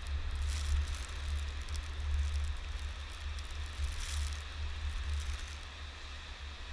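Wind buffeting the microphone in a heavy, uneven low rumble, over the steady hiss of surf breaking on a sandy beach, with brief louder gusts about half a second and four seconds in.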